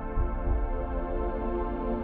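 Ambient intro music: sustained held notes over a deep bass.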